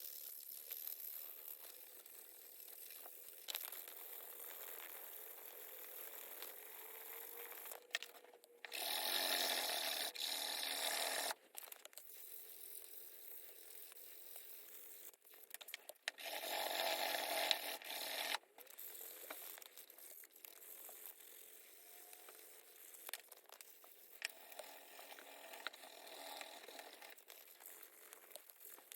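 Tool work on the sickle's handle: low scraping and small clicks, with two louder stretches of steady rasping, each about two and a half seconds long, the first about a third of the way in and the second just past halfway.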